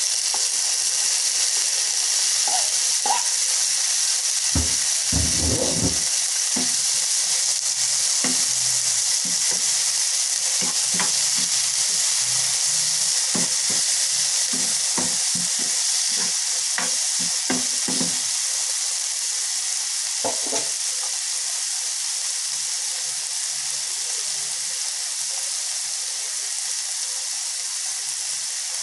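Chopped tomatoes, onions and bell peppers sizzling steadily as they fry in a nonstick frying pan, while a spatula stirs them, scraping and tapping against the pan in scattered short knocks, with a brief louder clatter about five seconds in.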